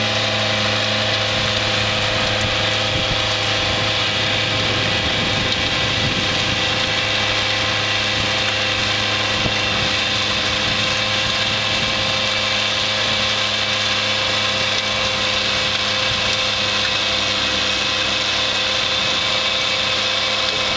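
Bad Boy mower's engine running steadily under load, driving a front-mounted Bercomac 66-inch snow blower that is churning through deep snow and throwing it out the chute.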